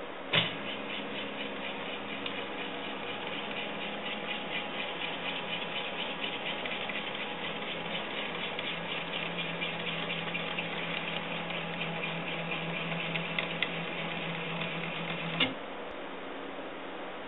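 Stepper motors of a homemade Contraptor mini CNC machine driving a pen plotter head over paper: a steady mechanical whir with rapid ticking and a low hum. It starts with a click about half a second in and stops with a click near the end, leaving the low hum.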